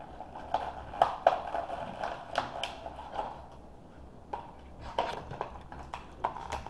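Plastic wrapping crinkling as it is peeled off a hard plastic toy capsule, with scattered crackles and clicks of plastic being handled.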